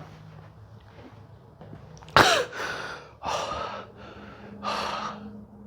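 Chiropractic adjustment: a sudden crack about two seconds in, with the patient's short cry falling in pitch, followed by three loud breaths.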